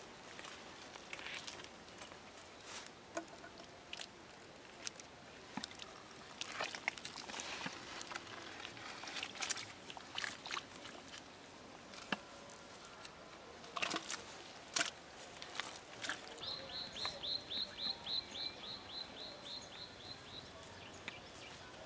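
Scattered rustles and crackles of leaves and grass being brushed. Then, about two-thirds of the way through, a bird calls a quick, even run of about fourteen short high notes lasting some four seconds.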